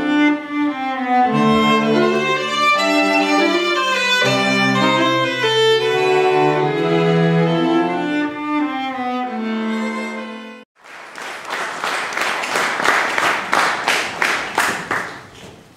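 String quintet of violins, viola and double bass playing bowed, sustained chords, cutting off abruptly about eleven seconds in. Audience applause follows, with claps in a steady rhythm of about four a second, dying away near the end.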